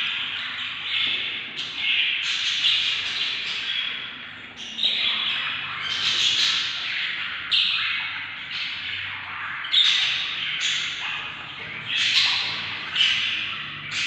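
Budgerigar chicks in the nest making harsh, raspy begging calls, the food-begging of hungry nestlings, repeated about once or twice a second and overlapping one another.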